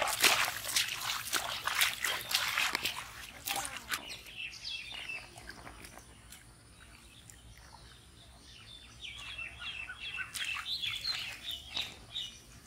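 Splashing and sloshing in shallow muddy water for the first few seconds, then birds chirping in short high calls, busiest near the end.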